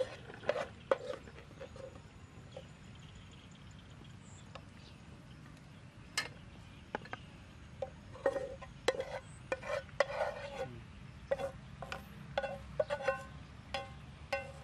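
Metal spatula scraping and clinking against a frying pan while stir-frying, then scraping the food out of the tipped pan onto a plate. The clinks are irregular, scattered at first and coming thick and fast in the second half.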